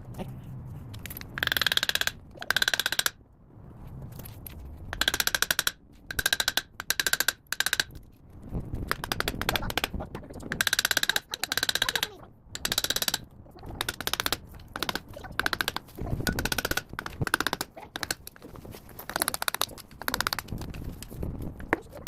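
Impact wrench run in a series of short bursts of rapid hammering, a dozen or so over the stretch, with quieter gaps between them, as fasteners on the planetary drive hub are worked loose.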